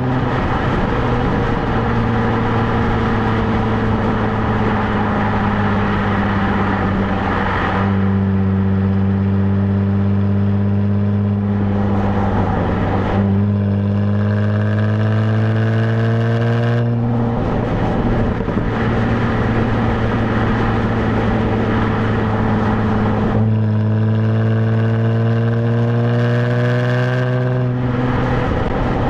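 Stock exhaust of a 2017 Jaguar F-Type, heard close up from the rear number plate while driving. It is a loud, continuous drone whose pitch holds or climbs slowly, then breaks and resettles several times, roughly every four to five seconds.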